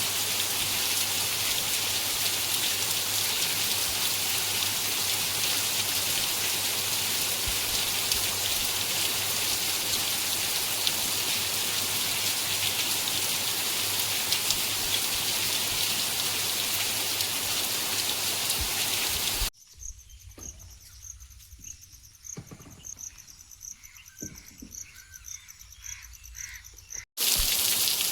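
Steady rain falling. About two-thirds of the way through it cuts out abruptly to a much quieter stretch of high, pulsing insect chirping with scattered drips, and the rain returns abruptly shortly before the end.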